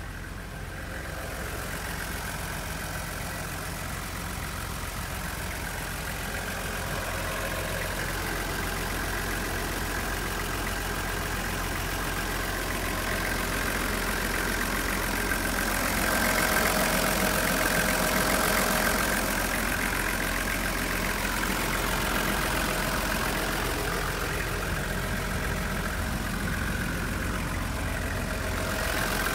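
Toyota Coaster's 1HZ 4.2-litre straight-six diesel engine idling steadily, a little louder for a few seconds past the middle.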